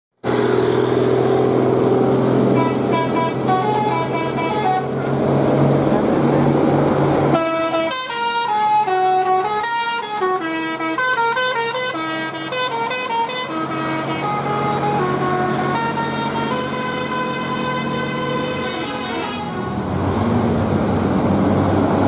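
Indonesian bus telolet basuri horn, a multi-tone musical horn, playing quick melodies of stepped notes over a diesel bus engine running. A short phrase comes early, the loudest and longest run comes around the middle as a coach passes close by, and softer phrases follow before only the engine is left near the end.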